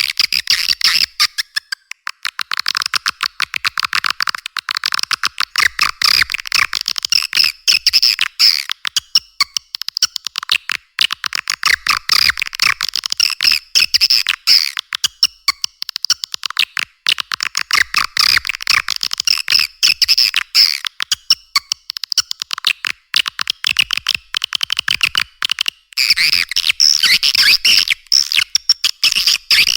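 Recorded swiftlet calling sound: dense, rapid, high-pitched twittering chirps and clicks, with short pauses every several seconds. It is a lure call played to draw swiftlets into a nesting house.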